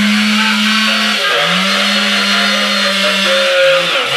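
Chainsaw running hard in a cut. Its engine note holds steady, drops briefly about a second in and picks up again, then breaks into short revs near the end.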